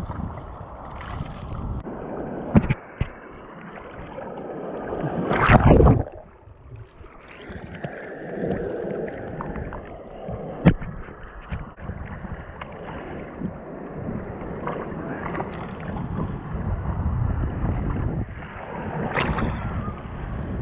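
Surf washing and splashing, with wind buffeting the microphone. The water swells loudest about five seconds in and again near the end, and a few sharp knocks come through.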